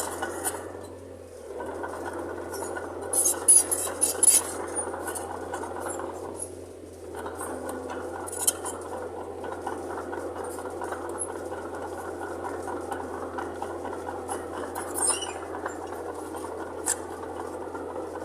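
Mitsubishi bulldozer running steadily, with sharp metallic clanks and clinks of its tracks and blade, the loudest a quick cluster a few seconds in and a few single ones later.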